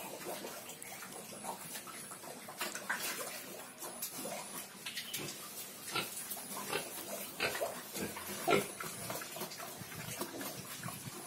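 Yorkshire pigs grunting in short, irregular grunts, a little louder about eight and a half seconds in.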